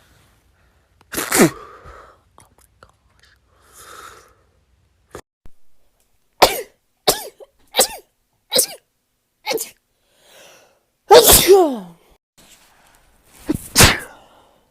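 A woman sneezing again and again. One sneeze, a breath in, then a quick string of five short, sharp sneezes, a bigger drawn-out sneeze that falls in pitch, and two more close together near the end.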